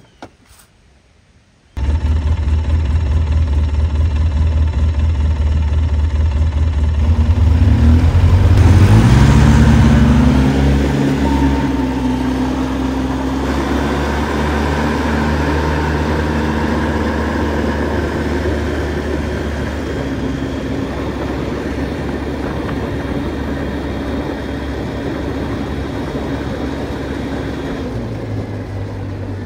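Polaris Sportsman MV7 military ATV's engine running while the quad is ridden, cutting in suddenly after a couple of quiet clicks about two seconds in. Its pitch rises as it accelerates about a third of the way through, then it runs steadily at cruising speed.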